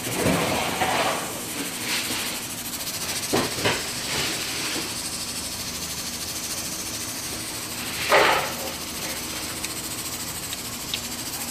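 A person tasting hot sopas off a ladle: several short, breathy bursts of air, the loudest about eight seconds in, over a steady hiss.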